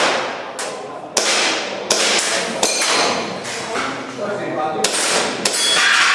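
An airsoft pistol firing a string of single shots in an IPSC-style stage, about seven shots roughly half a second to a second apart, each followed by a short ringing tail.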